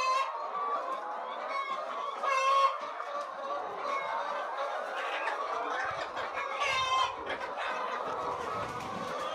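A flock of chickens clucking and calling all at once, with a few louder calls standing out above the rest, the loudest about seven seconds in.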